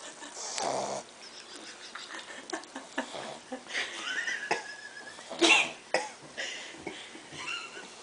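A dog's irregular snorts and snuffling breaths, with small mouth clicks and a thin wavering whine near the middle, and one loud snort at about five and a half seconds.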